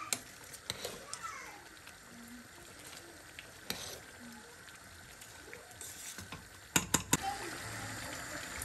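Cooked rice being stirred in a large stainless steel pot, with soft scraping and scattered small clicks of the spoon on the steel. A quick run of three or four sharp metal clinks comes about seven seconds in.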